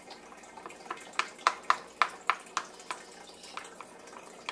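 A run of about ten light clicks, three or four a second and slowing near the end: small plastic toy pieces tapping or knocking on a plastic high-chair tray.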